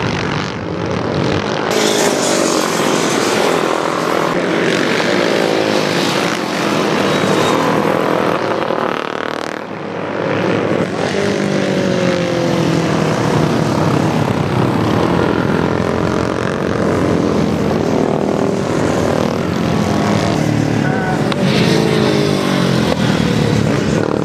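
Several historic racing motorcycles passing through a bend one after another. Their engine notes rise and fall in pitch as each bike goes by, loud and overlapping throughout.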